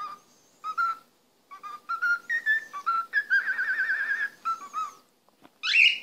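Cockatiel whistling a string of short clear notes, breaking into a warbling trill a little over three seconds in and ending on a rising note.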